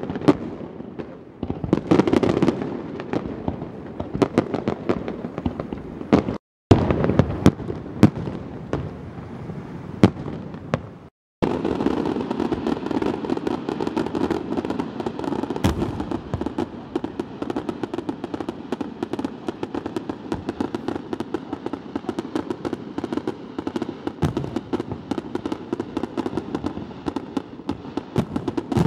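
Fireworks display: aerial shells bursting with sharp bangs, joined from about a third of the way in by a dense, continuous crackling that runs on with scattered louder reports. The sound cuts out completely twice, briefly, before the crackling begins.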